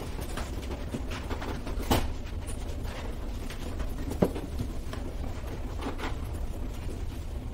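Steady low background rumble with a few scattered knocks and clicks, the sharpest about two seconds and four seconds in.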